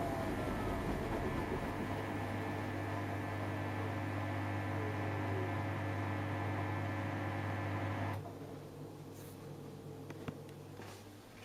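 Samsung EcoBubble washing machine running with a steady electric hum and whine, which cuts off abruptly about eight seconds in, followed by a couple of faint clicks.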